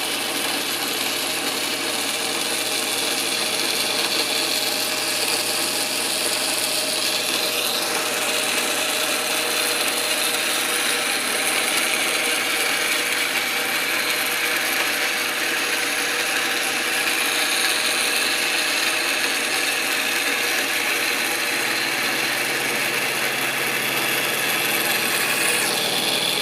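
Milling machine with a Volstro rotary milling head running, its 1/2-inch cutter orbiting and cutting into a scrap workpiece as it is fed inward. The sound is a steady mechanical whir with a hiss of cutting noise.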